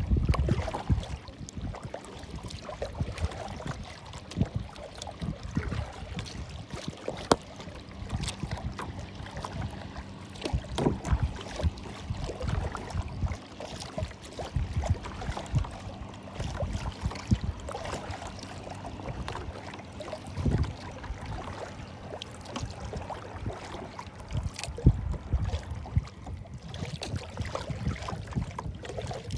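Wind buffeting the microphone in irregular gusts, over small waves lapping against a plastic kayak hull.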